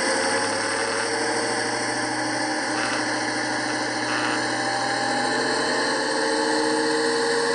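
OO gauge Accurascale Class 55 Deltic model's sound decoder playing its Napier Deltic diesel engine sound through the onboard speaker as the model runs along the track, steady and loud. Two brief rasps about three and four seconds in, the kind of rubbing the owner puts down to the speaker vibrating against the circuit board.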